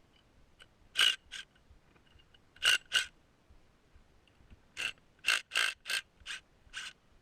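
Sharp metal clinks with a bright ring as wheel bolts, washers and a socket wrench are handled: two about a second in, two near three seconds, then a quick run of six from about five seconds on.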